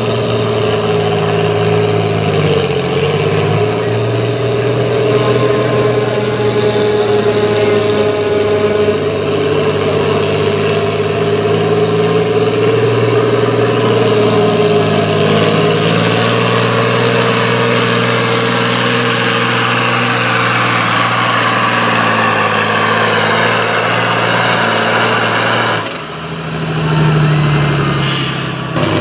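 10,000 lb class farm pulling tractor's engine running hard under load on a pull, steady and loud, with a faint high whine that climbs in pitch. The sound breaks off briefly near the end and picks up again.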